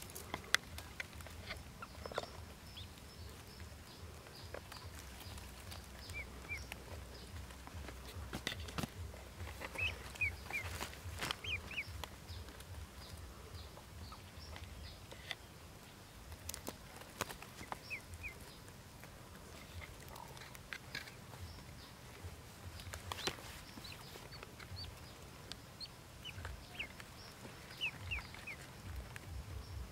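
Ducklings peeping faintly, short high chirps coming in small scattered clusters, with occasional sharp clicks.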